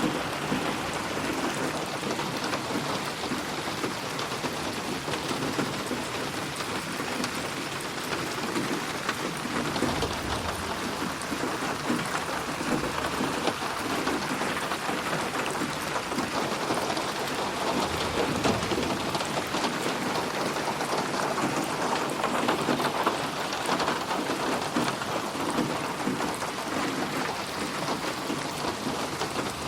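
Steady heavy rain pattering on a surface. Low rumbles of thunder swell twice, about ten seconds in and again near eighteen seconds.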